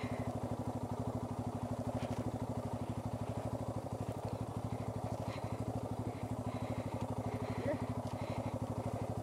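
Motorcycle engine running steadily at low revs, its firing strokes coming as an even, rapid pulse.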